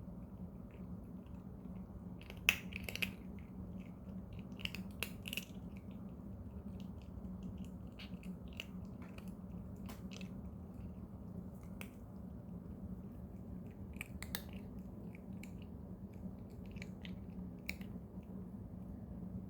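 A cat chewing crunchy dental treats, with sharp crunches in irregular clusters a few seconds apart. The loudest crunch comes about two and a half seconds in.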